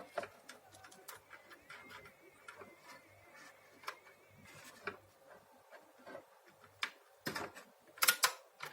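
Small clicks and taps of hands working a vacuum cleaner's power switch and wiring while it is tested with a series test lamp, with a few sharper clicks near the end.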